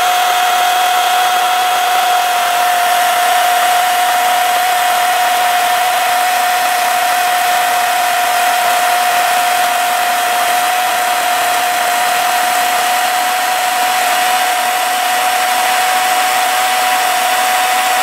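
WEN 40-volt brushless battery chainsaw running at full speed with a steady high whine, its chain cutting through a hardwood log under the saw's own weight.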